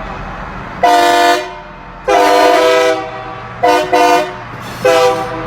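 A horn blowing in loud blasts of one steady pitch: a blast about a second in, a longer one about two seconds in, a quick double toot, and another blast near the end.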